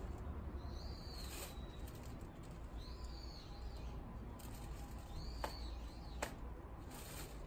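A small bird calling: a short, arched, rise-and-fall note repeated every second or two, over a steady low hum. About five and six seconds in come two sharp claps less than a second apart, like the two hand claps of a Shinto prayer.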